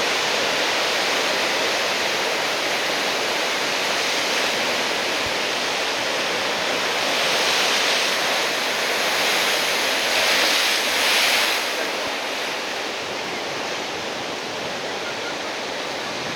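Heavy typhoon-swell surf breaking and washing in, a steady loud rush of water that swells louder for a few seconds around the middle.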